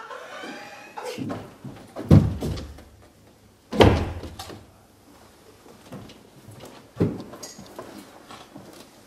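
Four heavy thuds at uneven intervals, each dying away quickly; the loudest comes just before the four-second mark.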